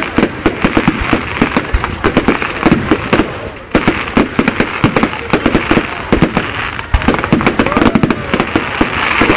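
Aerial fireworks bursting in a rapid volley, many sharp bangs a second over a continuous hiss, with a brief lull about three and a half seconds in.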